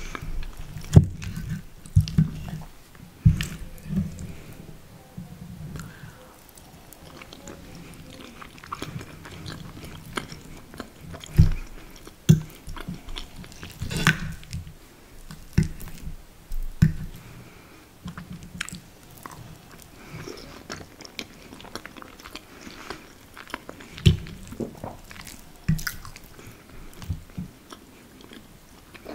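Close-miked chewing and wet mouth sounds of someone eating soft lasagna. Irregular sharp clicks and taps come through, some from the metal fork scraping and tapping the plate as a piece is cut.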